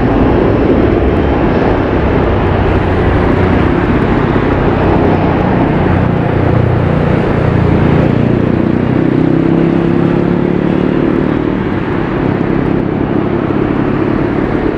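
Boeing 737-500 twin-jet at takeoff thrust, accelerating down the runway on its takeoff roll: loud, steady jet engine noise from its CFM56-3 turbofans.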